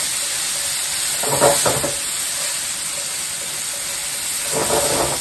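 Diced chicken cartilage sizzling as it stir-fries in hot oil in a frying pan over raised heat, stirred with chopsticks. A steady hiss, with two louder bursts about a second and a half in and near the end.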